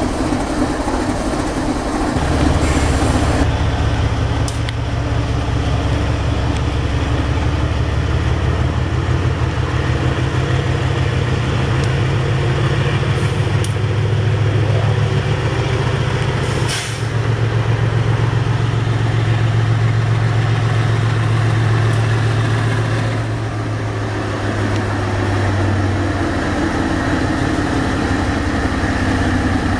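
Diesel-electric freight locomotives passing close at low speed, their engines running with a steady low drone. The sound breaks off for a moment about seventeen seconds in, then carries on.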